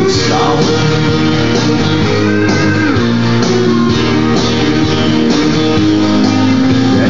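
Loud background music: an instrumental, guitar-led stretch of a song with no singing.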